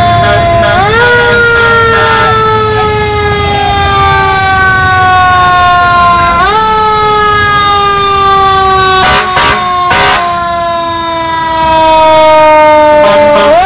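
Parade fire engine's siren wound up three times, each time rising quickly in pitch and then sliding slowly down.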